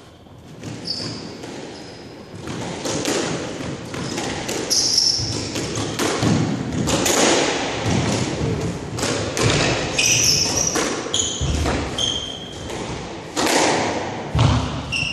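Squash rally: the ball repeatedly striking rackets and the walls of the court in sharp knocks, with short high squeaks from shoes on the wooden court floor. The hitting starts about two seconds in.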